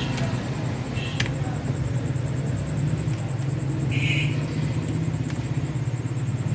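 A steady low mechanical rumble, with a few faint clicks and a short high squeak about four seconds in.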